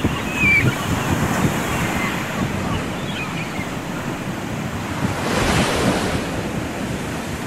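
Ocean surf breaking on the beach, a steady loud wash of noise, with wind rumbling on the microphone. The noise swells about five and a half seconds in.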